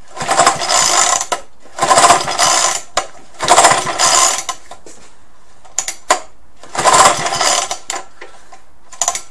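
Four pulls on the recoil starter of an old Suffolk 75cc engine, each about a second of rattling cranking, with the engine turning over but not catching; a few small clicks come between the third and fourth pulls. This is a cold start after priming, with the choke closed, on a recoil starter that has just been repaired and is not working brilliantly.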